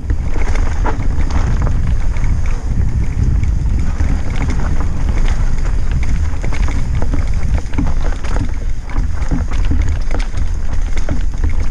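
Mountain bike descending a rocky, rooty trail, heard from a helmet-mounted camera: a steady heavy wind rumble on the microphone under constant rattling and knocking as the tyres and bike hit rocks and roots.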